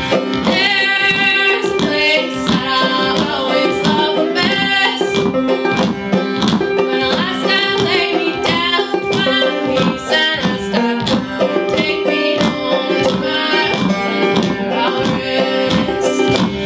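Acoustic string band playing: banjo, mandolin, acoustic guitar and upright bass, with a woman singing lead.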